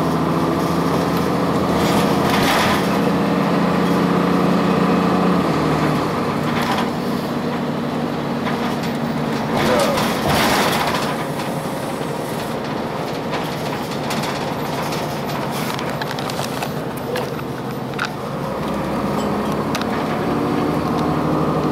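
Cummins ISC diesel engine of a 2002 Blue Bird CS transit bus running under way. Its steady note falls away about five seconds in and picks up again near the end. A few knocks and rattles come around two seconds in and again about ten seconds in.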